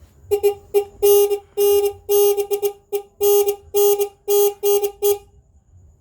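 CICADA 14-tone electronic horn sounding a rapid pattern of beeps at one steady pitch, some short and some held a little longer, until it cuts off about five seconds in.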